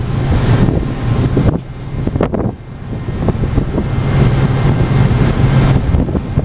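Wind buffeting the microphone on the deck of a moving ferry, gusting up and down, over a steady low drone from the ship itself.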